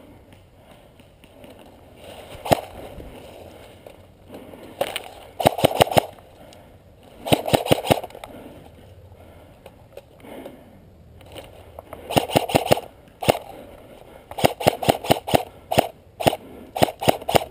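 Airsoft rifle firing: a single shot, then a series of short rapid bursts of sharp clicking shots, several shots per burst.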